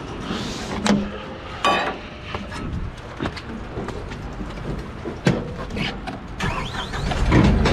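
Scattered knocks, clanks and a squeak as someone climbs aboard a truck-mounted Moffett forklift, with the forklift's engine running steadily underneath. The engine picks up near the end.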